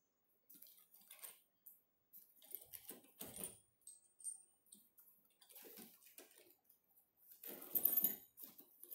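A hand rummaging through a bag of spare bolts and hardware: loose metal parts clinking and rattling, with rustling against cardboard boxes. It comes in irregular bursts, and the loudest clatter is near the end.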